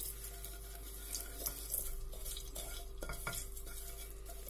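Wooden spatula stirring sugar in hot oil in a stainless steel pot, scraping and knocking on the pot a few times over a faint sizzle. The sugar is melting, the first stage of cooking caramel colouring.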